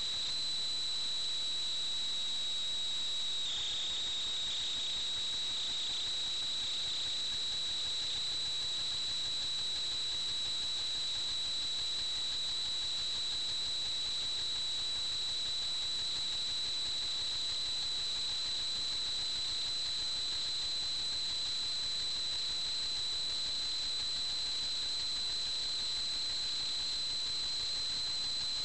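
A steady high-pitched whine over a constant hiss from an FPV model aircraft's flight recording, with a brief dip in pitch about three and a half seconds in.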